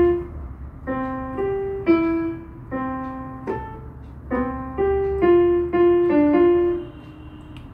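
Yamaha PSR-E473 portable electronic keyboard playing a simple melody of single held notes, one after another. The playing stops about seven seconds in.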